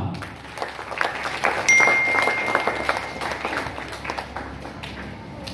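Audience clapping as a graduate is called up for her certificate. It swells about a second in and thins out over the next few seconds. A thin steady high tone sounds for about a second and a half near the middle.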